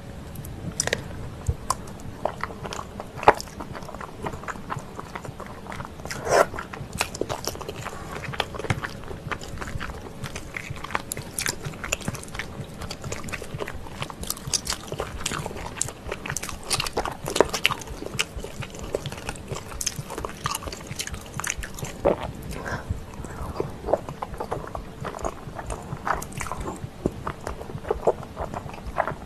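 Close-miked eating of creamy pasta: wet chewing and lip smacks, with noodles slurped into the mouth, in irregular sharp clicks throughout.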